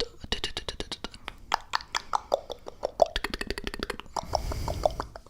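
Close-miked mouth sounds: rapid clicks and pops of tongue and lips, several a second, with a breathy rush of air on the microphone about four seconds in.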